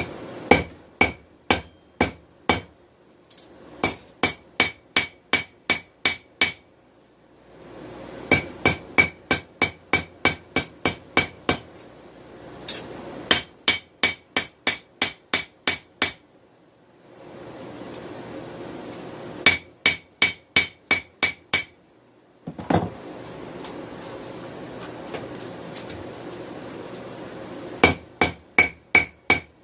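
Hammer striking hot 416 stainless steel on an anvil to draw it out, in runs of about three to four blows a second with pauses between them, each blow with a short bright ring. Between the runs there is a steady rushing noise.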